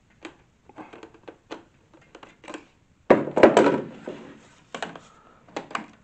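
Hard plastic parts of an Ultenic FS1 cordless stick vacuum being handled and fitted together, unpowered: a scatter of small clicks and knocks, with a louder clatter of knocks about three seconds in.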